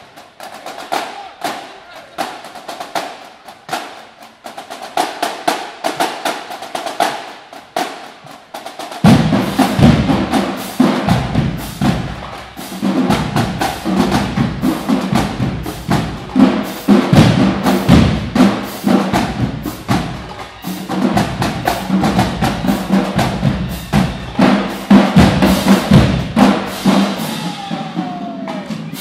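Marching drumline playing a cadence. For the first nine seconds the snares play rapid strokes and rolls alone; then the bass drums and the full line come in together, much louder.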